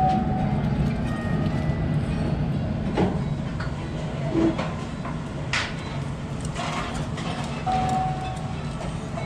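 Restaurant room noise: a steady low hum with scattered clicks and knocks and a few brief tones.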